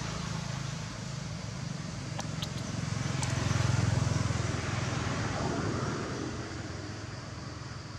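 A motor vehicle's engine running and passing by, a low rumble that grows louder to a peak about halfway through and then fades.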